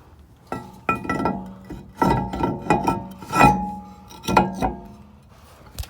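Cast-iron brake rotor knocking against the wheel hub as it is shifted and turned to line its holes up with the hub's: about eight metal clanks, each ringing briefly like a bell.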